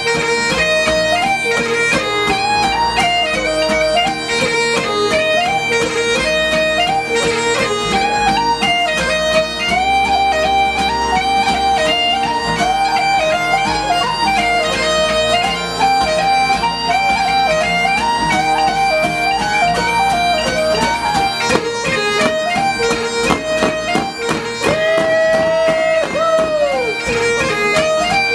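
Bagpipes playing a fast Scottish strathspey-and-reel tune over a steady drone, with a whistle and strummed acoustic guitar accompanying. Near the end a long held note bends downward.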